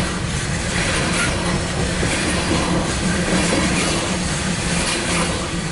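CSX coal train's hopper cars rolling past at close range: a steady low rumble of steel wheels on rail, with irregular clatter from the cars.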